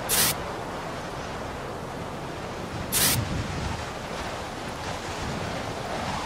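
Steady wind sound effect with two short whooshing gusts, about three seconds apart, for a whirlwind forming.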